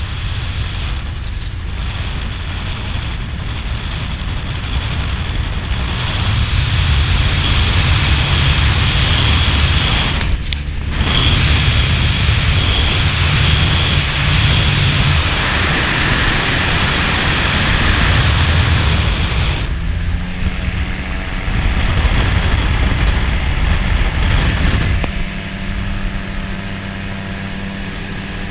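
Open-cockpit gyroplane in flight: the engine and propeller drone under heavy wind buffeting on the microphone. The sound cuts out for a moment about ten seconds in. Near the end the buffeting eases and the engine's steady drone comes through more clearly.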